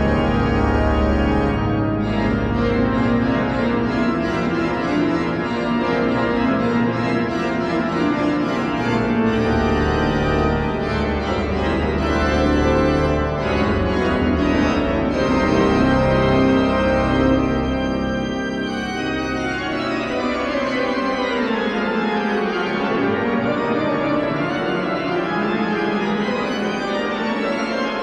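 Church organ playing full chords over a deep pedal bass. About two-thirds of the way through the bass drops out and the upper voices move down and back up in a sweeping line.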